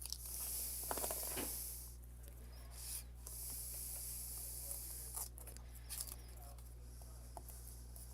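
Paper being handled: two stretches of hissing rustle as the paper slides and rubs, with scattered light clicks and taps.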